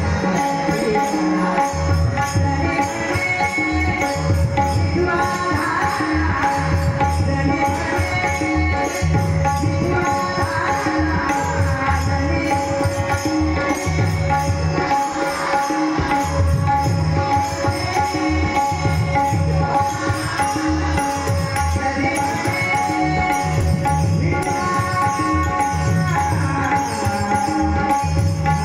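Tabla playing a steady rhythmic pattern under a held drone tone, with a wavering melody line over it in an instrumental passage of a devotional song.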